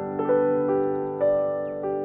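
Slow, gentle piano music: single notes and chords struck about every half second and left to ring out.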